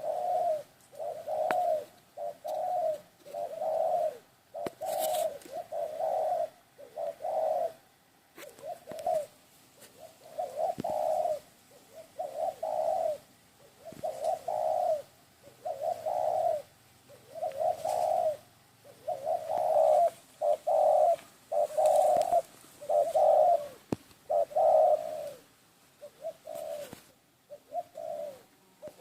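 A dove cooing: a long series of short, low, same-pitched coos repeated roughly once a second without a break.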